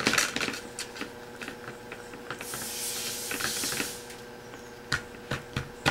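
Hands working a sticky herb-and-molasses dough on a plastic lid: scattered light taps and clicks of fingers against the plastic, with a soft hissing rustle for about a second and a half midway.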